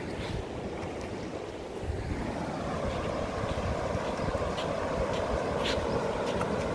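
Sea surf and water moving at a river mouth where the stream runs into the sea, a steady wash that grows a little louder about two seconds in, with wind buffeting the microphone.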